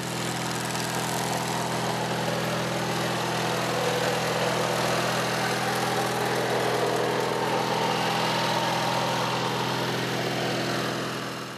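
Lawn tractor's 18 hp Briggs & Stratton twin-cylinder engine running steadily at a constant speed.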